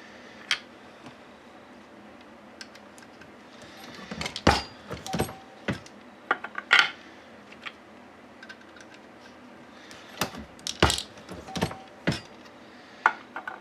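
Brass .308 rifle cases clinking and knocking as they are handled at a reloading press and set into a plastic loading block. About half a dozen separate sharp clinks, spread out with quiet gaps between them.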